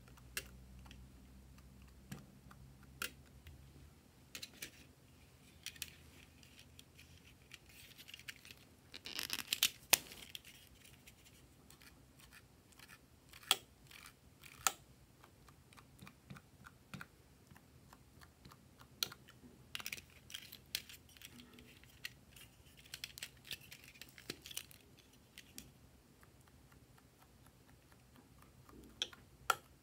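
Sporadic light clicks and taps of stacked plastic macaron-shaped markers being handled and dabbed onto white slime, with a few short scratchy rustles. The clicks come thickest about a third of the way in and again in the second half.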